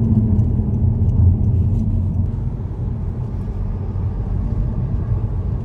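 Steady low vehicle rumble, mostly deep bass, a little louder for the first two seconds and then easing slightly.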